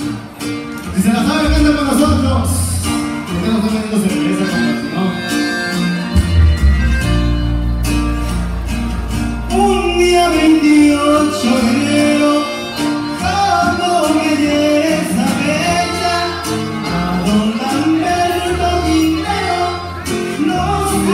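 Live norteño band with button accordion, saxophone, acoustic guitar, electric bass and drum kit playing a song, with a man singing lead.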